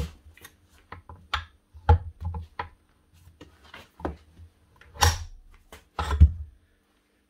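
Irregular knocks and clunks of a heavy steel demolition breaker and its chisel being shifted about by hand on a hard floor, about ten separate thuds with short quiet gaps between.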